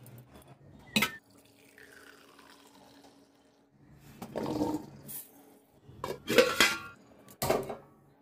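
Steel kitchen bowls and plates being handled with water: a sharp clink about a second in, then louder clattering and splashing handling sounds in the second half.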